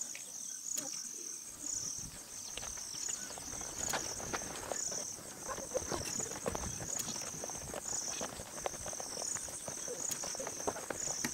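Insects chirping in a steady, pulsing high trill, with footsteps crunching on a dirt path starting after about a second and a half.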